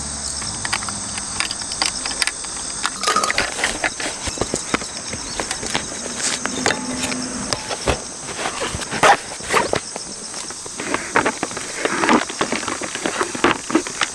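Camping gear being handled and packed: repeated small knocks, clinks and cloth rustles as items are wiped with a towel and set into a padded storage bag, over a steady high-pitched insect drone.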